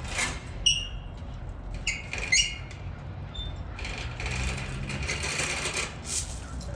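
Large forklift's engine running with a low rumble, with several short, high squeaks in the first half and a hiss about four to six seconds in.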